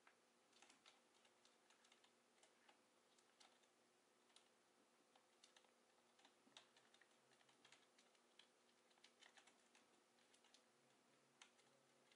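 Faint, irregular light clicks and taps of a sugar glider's feet on a homemade plastic exercise wheel with a mesh running track as it runs and scrambles on the turning wheel, in uneven flurries.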